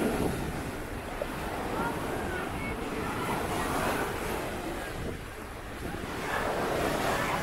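Sea waves washing onto a sandy shore, the surf swelling twice, with wind buffeting the microphone.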